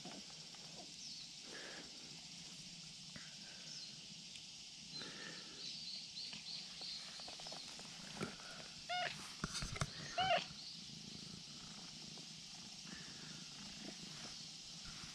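A tabby-and-white cat gives two short meows about a second apart, near the middle, among soft rustling as it is stroked and rolls about. A quick run of faint high chirps comes a few seconds before.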